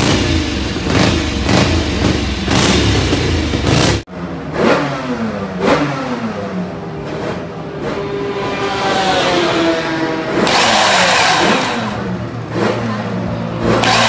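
Stationary classic racing motorcycles being revved. First a Benelli six-cylinder racer is blipped quickly and repeatedly. After an abrupt cut about four seconds in, a single-cylinder racing engine is revved in separate blips with the revs falling away after each, then settles before being held at high revs near the end.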